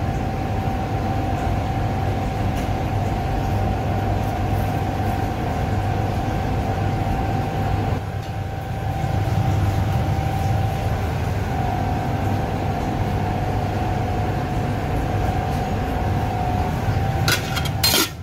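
Steady low machine hum of commercial kitchen equipment, with a faint steady whine above it. A few sharp clicks come near the end.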